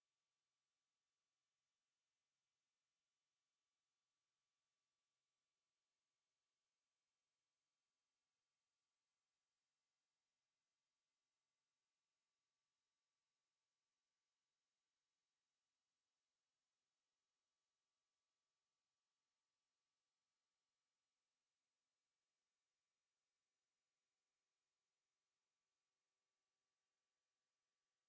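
A single very high-pitched pure tone, held at one unchanging pitch and loudness with nothing else beneath it, like an electronic test tone.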